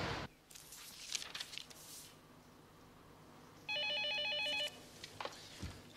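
Office desk telephone ringing once: a single electronic trilling ring about a second long, a little past the middle.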